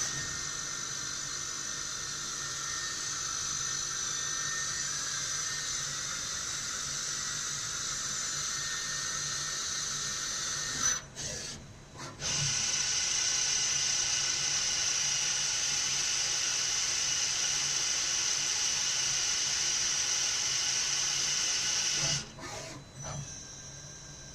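Tsugami BS12 Swiss-type CNC lathe running, a steady high whine with hiss. It breaks off briefly about eleven seconds in, starts again, and stops a couple of seconds before the end.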